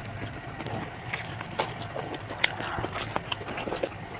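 Mouth sounds of a person eating and chewing food, with scattered sharp clicks and smacks at an uneven pace.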